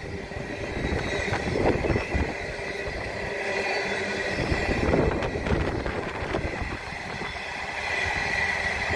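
The Ghan's passenger carriages rolling past close by, their wheels rumbling and knocking irregularly on the rails.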